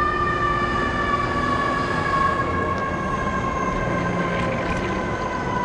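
Emergency-vehicle siren holding one long, steady tone that slowly sinks in pitch, over street traffic noise.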